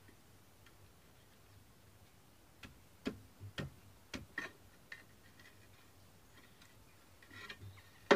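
Light, irregular metal-on-metal taps as a pry bar knocks seized rear brake pads out through the caliper carrier, with a louder knock at the very end.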